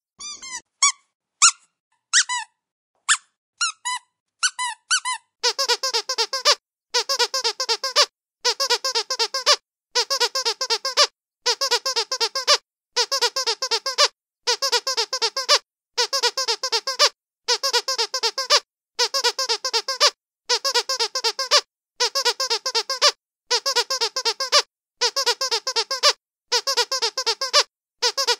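Dog's squeaky toy being squeezed: a few separate squeaks at first, then, about five seconds in, rapid squeaking in regular bursts about a second long with short pauses between them.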